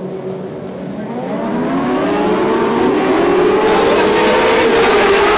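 A pack of Lightning Sprint cars accelerating away together from the start. From about a second in, many engine notes climb in pitch at once and the sound grows steadily louder.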